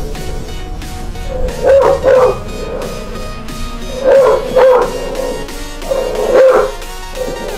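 A dog barking in pairs of two short barks, three pairs about two and a half seconds apart, over background music.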